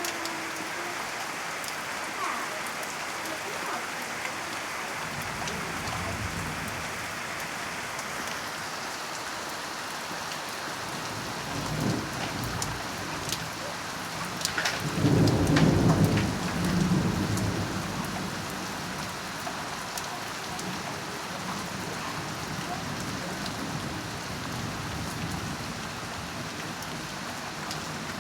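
Heavy rain falling steadily, with thunder rumbling low a couple of times and one loud peal about halfway through that rolls on for a few seconds.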